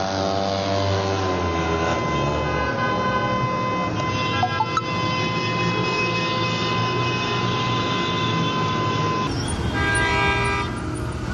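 Vehicle horns sounding long and steady in a busy street, several at different pitches at once, with one sliding down in pitch at the start. Near the end a shorter horn sounds over street noise.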